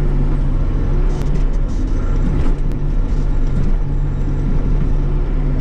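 Bobcat E42 mini excavator's diesel engine running steadily under load, heard from inside the cab, while the hydraulics move the digging arm. A few light knocks come about a second in.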